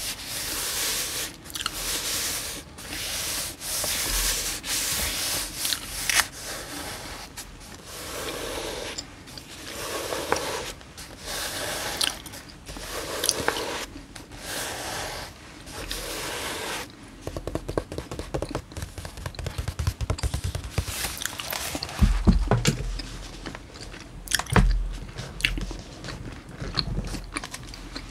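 Fingernails and fingertips rubbing and scratching over the paper pages of an old hardback book, in slow strokes about a second long. In the second half, handling noise from a paperback book: rustling pages, clicks and a few dull thumps.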